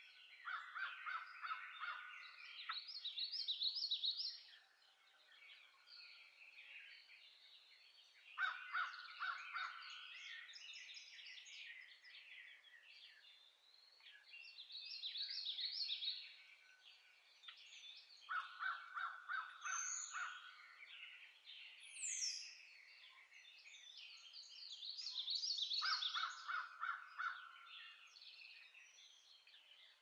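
Several birds singing in a spring dawn chorus, with rapid trilled song phrases repeating every several seconds and a brief high falling note about two thirds of the way through.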